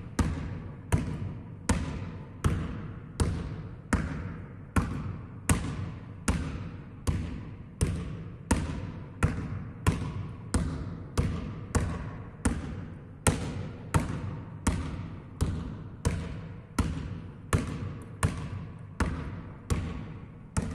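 Basketball dribbled steadily on a sports-hall floor, about one bounce every 0.7 seconds, each bounce echoing in the hall.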